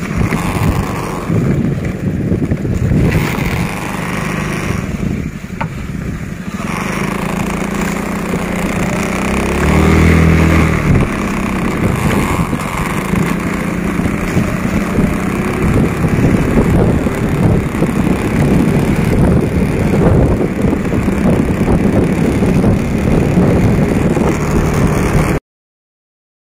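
A motor vehicle engine running steadily with wind rush on the microphone while moving along a dirt road. A brief, louder low tone comes about ten seconds in, and the sound cuts off abruptly near the end.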